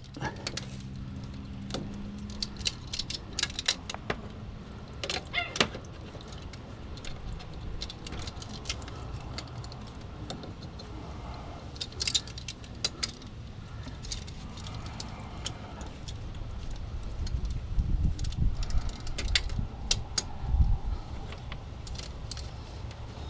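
Metal hand tools clinking and rattling with scattered sharp clicks as an oil filter wrench is worked onto the car's oil filter, with a few heavier low bumps near the end.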